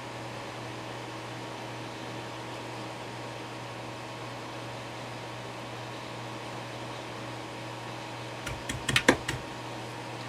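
A steady low mechanical hum runs throughout. Near the end comes a quick clatter of about half a dozen sharp clicks and knocks from tools being handled on an electronics repair bench.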